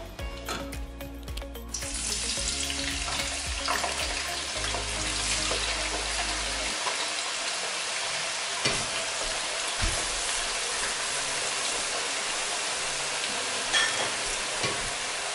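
Potato fries deep-frying in hot oil: a steady, dense sizzle that starts about two seconds in and goes on evenly.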